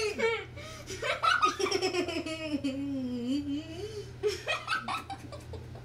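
People laughing hard, with one long drawn-out laugh that slides down and back up in pitch, and a few short sharp sounds near the end.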